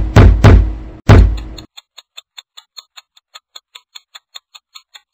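A run of heavy knocking thumps, about three a second, that stops about a second and a half in, followed by faint, fast clock-like ticking at about five ticks a second.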